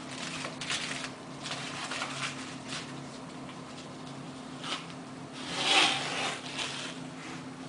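Blue masking tape being peeled off the edge of a resin-coated canvas: a few short tearing rips, the loudest near the end, with rubbing and crinkling of the removed tape in gloved hands.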